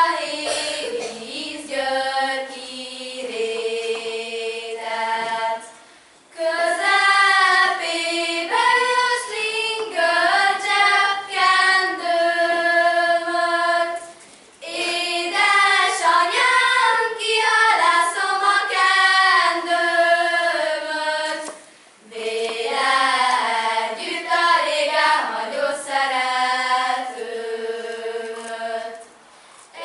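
A group of girls singing a Hungarian folk song unaccompanied, in phrases of about seven to eight seconds with short breaks for breath between them.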